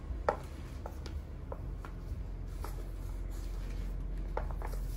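Footsteps on a tiled shop floor: scattered light, irregular clicks and taps over a low steady hum of the room.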